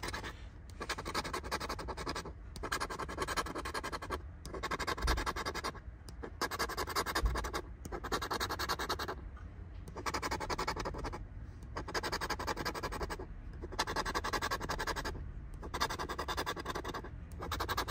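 A scratcher tool scraping the latex coating off a scratch-off lottery ticket on a clipboard. It goes in repeated rasping bouts of about a second and a half, each followed by a brief pause, about nine in all.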